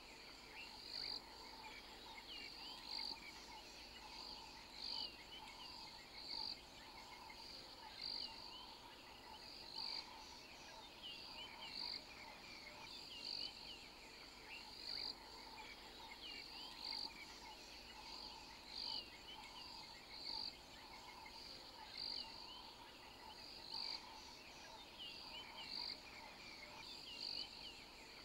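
Chorus of calling insects and frogs, with a high chirp repeating every second or two over a steadier pulsing trill and scattered short rising and falling chirps.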